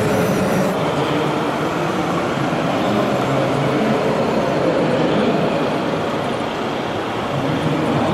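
Steady mixed din of a busy exhibition hall with an engine-like hum from radio-controlled model trucks running on a course. A high thin whine drops out just under a second in.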